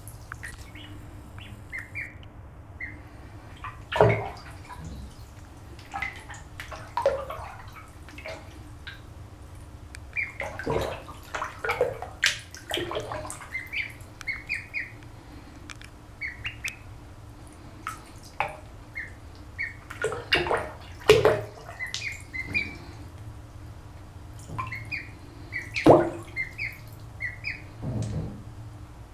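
Ducklings peeping in short high chirps, again and again, as they paddle in bathwater. A few louder knocks come through, the loudest about three quarters of the way in.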